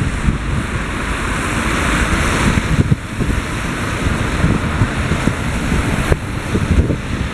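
Strong wind buffeting the camera's microphone: a loud, uneven low rumble that gusts and drops over a steady hiss.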